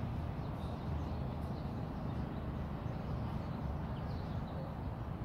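Outdoor ambience: a steady low rumble with a few faint bird chirps now and then.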